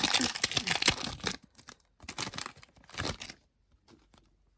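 Foil wrapper of a Pokémon TCG booster pack being torn open and crinkled. There is dense crackling tearing for about the first second and a half, then two shorter crinkles, then a few light clicks of handling.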